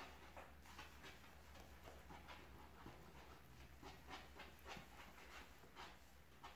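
Faint, wet squishing of fingers working raw egg and sugar into yeast in a well of wheat flour, in soft strokes about two or three times a second.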